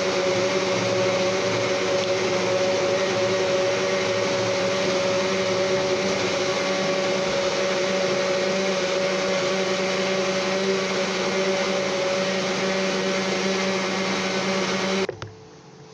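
Electric kitchen blender running steadily, blending pineapple for juice, then switched off suddenly near the end.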